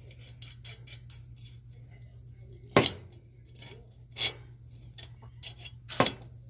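Steel tools and hardware clinking as a bolt and nut on the cart's handle bracket are held with pliers and turned with an adjustable wrench: scattered sharp metallic clicks, the loudest about three seconds in and another near the end, over a low steady hum.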